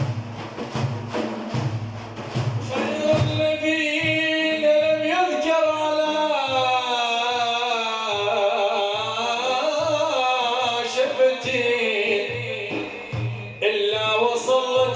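A man sings a long, drawn-out melismatic line of a devotional praise song (madih) over a steady drumbeat. The voice enters about three seconds in; before that only the drumming is heard.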